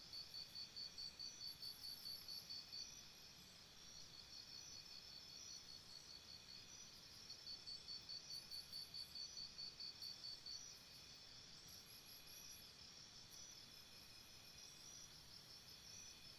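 Faint crickets chirping: a steady chorus of crickets, with one nearer cricket giving two runs of rapid, even chirps, about four a second, separated by a pause of a few seconds.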